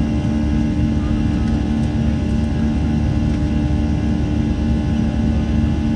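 Cabin noise of a Boeing 737-700 airliner: the steady drone of its CFM56-7B jet engines and rushing airflow, with a steady low hum over a broad rumble.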